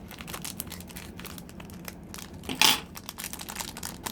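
Plastic packaging crinkling and crackling as it is handled, with one much louder, brief burst of crinkling about two and a half seconds in.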